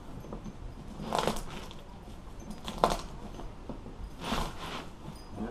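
Three short scraping, rustling noises of boat seat upholstery being worked on by hand, the vinyl and staples being handled and pried; the middle one is the sharpest.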